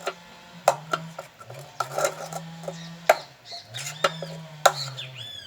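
A spoon stirring thickening slime in a bowl, clicking and scraping against the bowl at irregular intervals of about a second.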